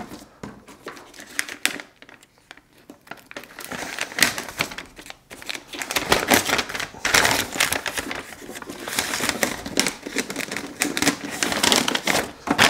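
Brown kraft paper wrapping crinkling and rustling as a paper-wrapped box is handled, with quick clicky handling sounds; sparse at first, then busier from a few seconds in.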